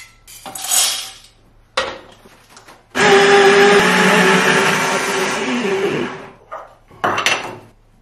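Baratza Sette burr coffee grinder grinding a 16 g espresso dose: a loud, steady whir that starts abruptly about three seconds in, lasts about three seconds and winds down. A few short clinks and rattles come before it, and one short knock comes near the end.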